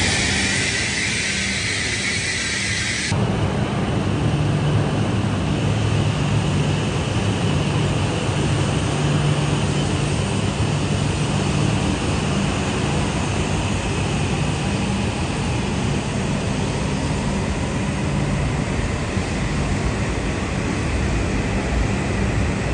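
E5 and E6 series Shinkansen trains moving slowly through a station. A high hiss cuts off suddenly about three seconds in, leaving a steady low hum and rumble of the train.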